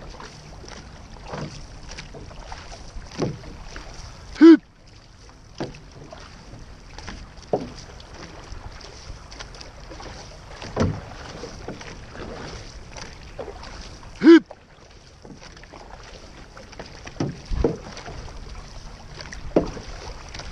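Six-person outrigger canoe under way: paddle strokes in the water and water rushing along the hull, with wind on the microphone. Two short, loud sounds stand out, about ten seconds apart.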